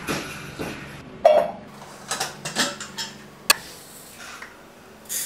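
Kitchen clatter from a stainless steel pot and a glass jar of red lentils being handled on the counter: a sharp clang with a short metallic ring about a second in, a sharp click midway, and lighter knocks and rattles around them.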